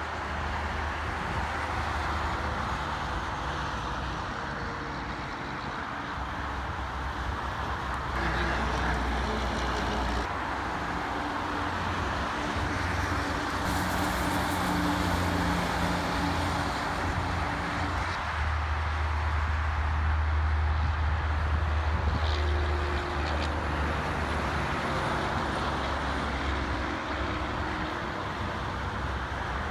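Multi-lane highway traffic: a steady roar of tyres and engines from passing cars and trucks. In the middle a tri-axle dump truck's diesel engine passes closer, adding a steady engine hum.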